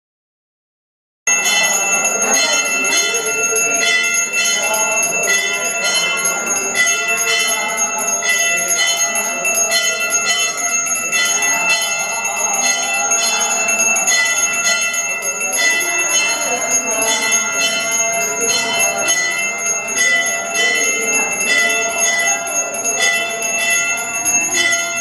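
Puja hand bell rung continuously in fast strokes, starting about a second in, as is done during a temple bathing ritual. Faint voices lie beneath the ringing.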